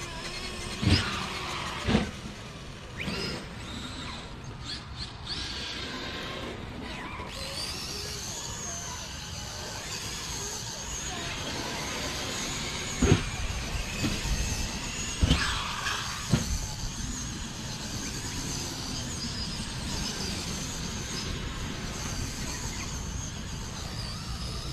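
Electric RC cars running, their motors giving a wavering high whine over a steady rush. There are a couple of sharp knocks near the start and a cluster of four more about halfway through.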